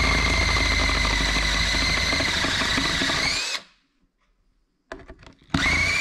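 Power drill with a 1/4-inch bit drilling out a steel ball-joint rivet in a control arm, running steadily. It stops about three and a half seconds in and starts again near the end after a few small clicks.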